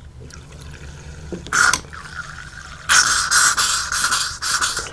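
Water squirted from a rubber bulb syringe through a fountain pen's nib and feed into a small glass jar, flushing out old ink: a short squirt about one and a half seconds in, then a longer, uneven one from about three seconds in.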